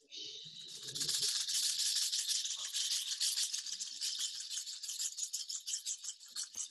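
Rain sound effect: a dense, crackling high patter that starts suddenly, swells about a second in and keeps on. A brief low murmur lies under it in the first second.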